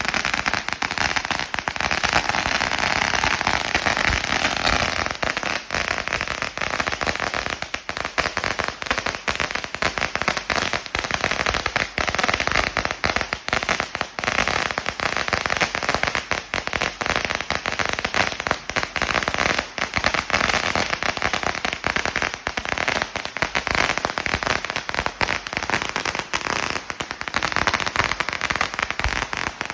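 A 16,000-shot firecracker roll going off: a continuous, rapid, unbroken chatter of bangs.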